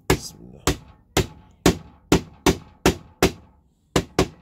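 A hammer tapping a freshly glued wooden joint together, about ten sharp taps at roughly two a second, with a short pause before the last two.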